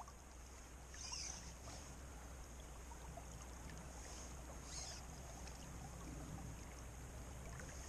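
Faint, steady rush of flowing creek water, with a few brief soft high sounds over it.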